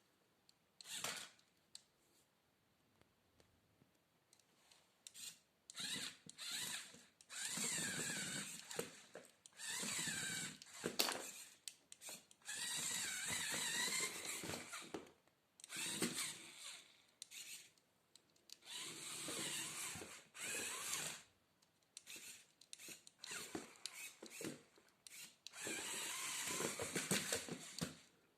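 Small electric motors of a Lego Technic model whirring in repeated stop-start bursts, each one to three seconds long, with the pitch rising and falling within the longer runs.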